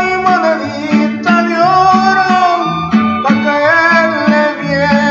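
Latin American song with guitar: a bass line alternating between two notes about twice a second under a singer holding long, wavering notes.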